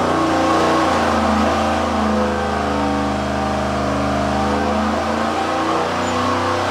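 350 small-block Chevy V8 with a hydraulic flat-tappet camshaft running hard under load on an engine dyno during a power pull, its note rising slowly as rpm climbs from about 3,100 to 3,500.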